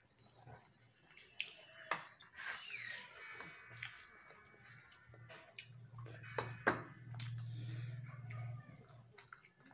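Fingers mixing rice and fish curry on a steel plate, making scattered wet squishes and sharp clicks against the metal. A low hum comes in for a few seconds in the second half.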